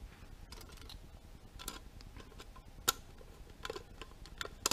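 Small screwdriver and hard plastic parts of a WPL C24 RC pickup kit clicking and ticking as a tiny screw is driven into a plastic body part. A few faint, scattered light clicks, the sharpest a little past halfway.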